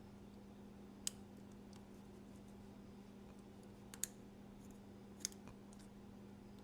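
Three sharp clicks, spaced a second or more apart, as a small pointed tool picks and pries at a magnet set in a knife's carbon fiber scale, over a low steady hum.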